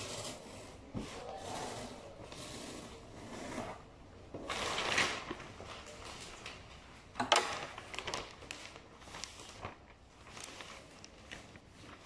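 Wrapping paper rustling and crinkling as it is folded around a cardboard box, with a louder stretch of crinkling about five seconds in and a sharp crackle just after seven seconds.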